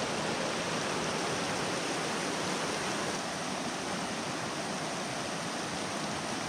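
Shallow mountain stream rushing steadily over rocks and stones.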